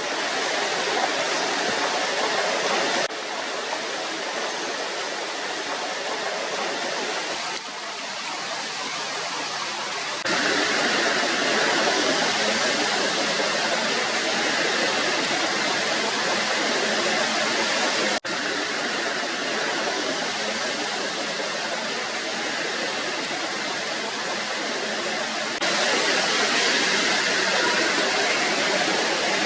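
Muddy monsoon floodwater rushing down a road and stream beds: a steady rushing noise that jumps abruptly in level and tone several times.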